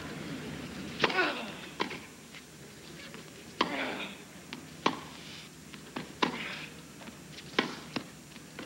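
Tennis rally on a hard court: sharp pops of the ball coming off racket strings and bouncing on the court, spaced about one to two seconds apart, with a player's short grunt after some of the hits.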